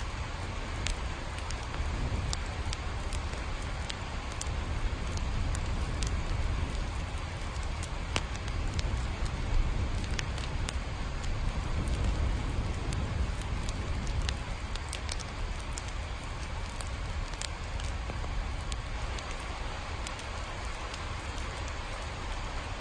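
Steady rain with scattered sharp drops ticking, over a low, even rumble.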